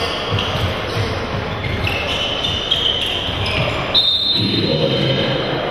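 Basketball game in a gym: a ball bouncing on the court, high squeaks of sneakers, and voices in the background, all echoing in a large hall.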